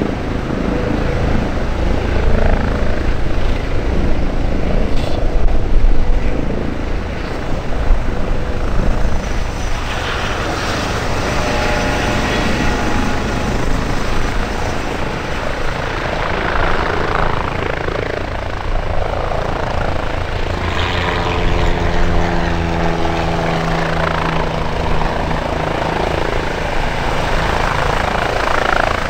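Police Airbus Helicopters EC135 P2 in a low hover, its twin Pratt & Whitney PW206B2 turboshafts and rotors running steadily with a fast low rotor thump. A steady droning hum of several tones joins about twenty seconds in.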